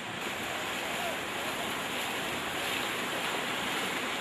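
Steady rushing of fast-flowing floodwater.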